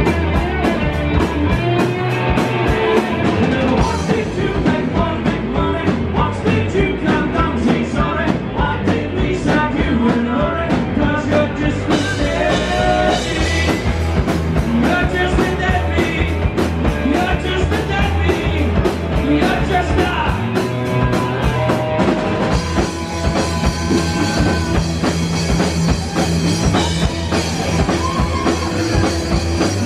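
Live rock band playing loudly: electric guitars over a driving drum-kit beat.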